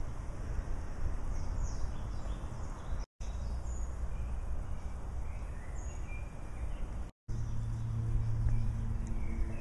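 Outdoor ambience: faint, short chirps of small birds scattered over a steady low rumble. It cuts out briefly twice, about three and seven seconds in, and after the second break a steady low hum comes in.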